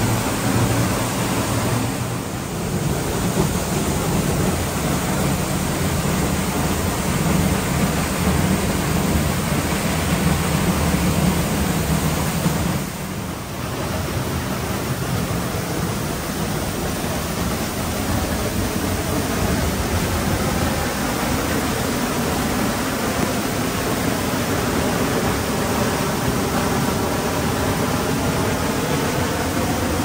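Giessbach Falls waterfall: water pouring down in a loud, steady rush, heavier and deeper for the first dozen seconds, with brief dips about two seconds and thirteen seconds in.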